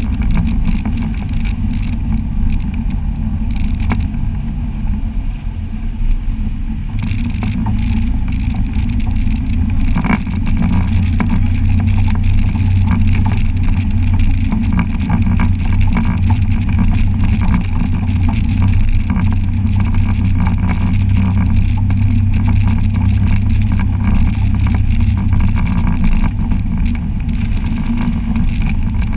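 Side-by-side UTV engine running steadily while it drives a bumpy, rocky trail. Frequent short knocks and rattles of the chassis and loose rocks are heard over the engine drone.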